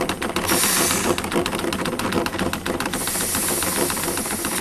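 Half-inch air-operated double diaphragm pump running with a rapid clatter as its ball valves seat, the sign of water hammer in the suction line. Twice air hisses through the inlet stabilizer's charge valve, first about half a second in and again from about three seconds, as its air pressure is let out and a slight vacuum is pulled on the bladder.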